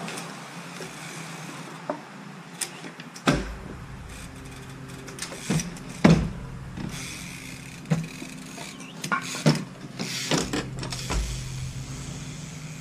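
Trials bike hopping and landing on wooden ramps and planks: a string of sharp knocks as the tyres and frame hit wood and pavement, the loudest about six seconds in, over a steady low hum.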